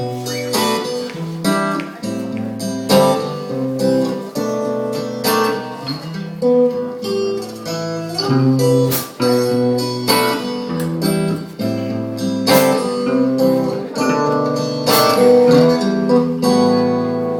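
Acoustic guitar strumming chords in an instrumental passage of a song, with a steady rhythm.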